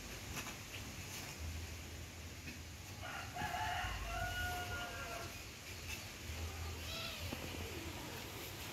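A rooster crows once, one long held call of about two seconds starting about three seconds in. A fainter call that falls in pitch follows near the end.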